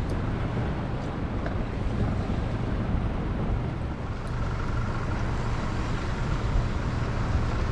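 Steady low rumble and hiss of wind and water on an open skiff, with wind buffeting the microphone.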